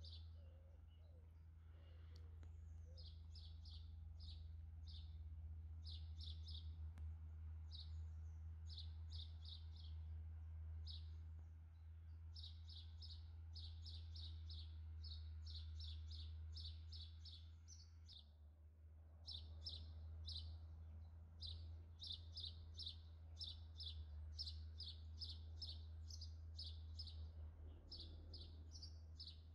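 Small songbirds chirping: runs of short, high chirps, several a second, with a brief pause a little past halfway through. A steady low hum sits beneath them.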